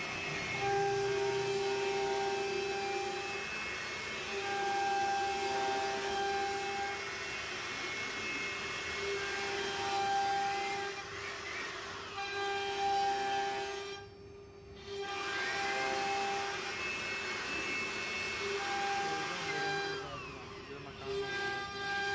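CNC router cutting grooves in a wooden door panel: the spindle keeps up a steady high whine over the rasp of the bit in the board, with whines gliding up and down in pitch as the gantry moves. About 14 seconds in the cutting noise drops away briefly, then picks up again.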